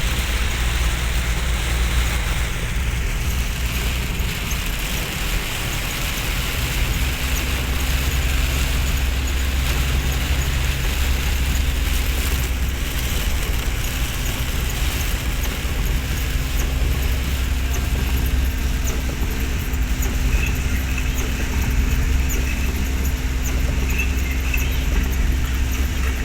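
A car driving in heavy rain: a steady low rumble of engine and tyres under the even hiss of rain and wet road.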